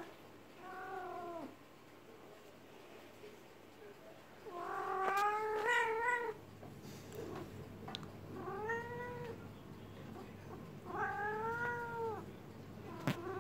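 Calico cat in heat yowling: four long, drawn-out calls, the loudest and longest about five seconds in, the heat call of a female in season. A sharp click near the end.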